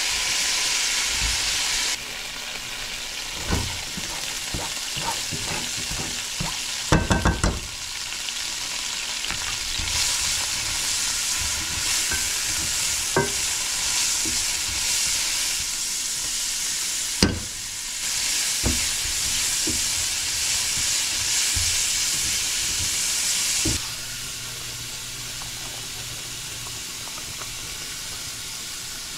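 Food frying and sizzling in a pan on a stovetop, with scattered knocks and clicks of a utensil stirring against the pan, including a quick rattle of several knocks about seven seconds in. The sizzle drops and rises abruptly a few times.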